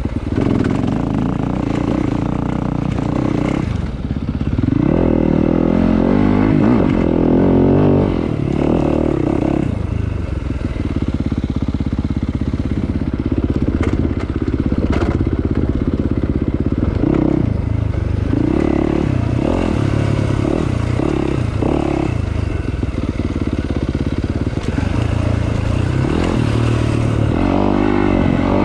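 Dirt bike engine running under a rider's throttle on a rough rocky trail, its pitch rising and falling again and again as the throttle opens and eases off. A few sharp knocks come about halfway through.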